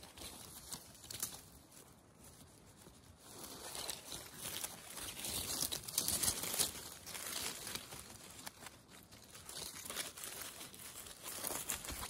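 Leafy undergrowth, moss and forest-floor litter rustling and crackling as a gloved hand pushes through to pick matsutake mushrooms from the ground. The rustling comes and goes and is loudest around the middle.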